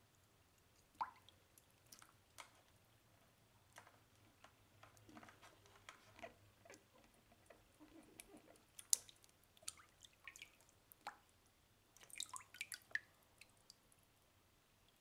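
Faint drips and small splashes of water in a plastic basin as a hand moves about under the surface, coming at irregular intervals, with a quick run of splashes about twelve seconds in.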